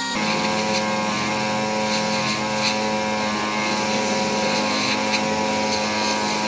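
A small motor whirring steadily at a constant pitch, starting and stopping abruptly.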